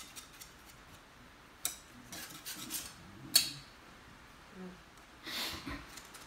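Paintbrush tapping and scraping on a paint palette and easel: a sharp tap about a second and a half in, a louder click a little after three seconds, and a longer scrape near the end.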